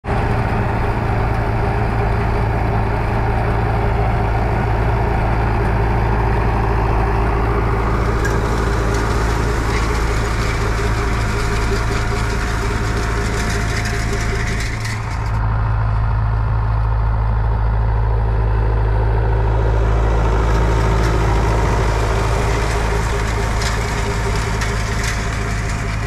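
David Brown tractor engine running steadily as it pulls a rotary hay bob through cut hay, with scattered clicks and rattles over the engine note.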